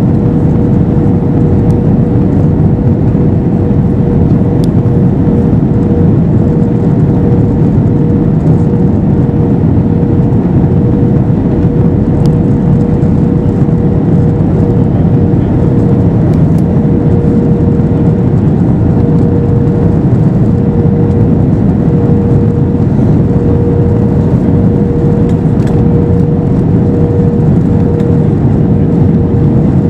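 Steady low rush of engine and airflow noise inside the cabin of an Airbus A321-212 with CFM56 engines in flight, with one steady humming tone held over it.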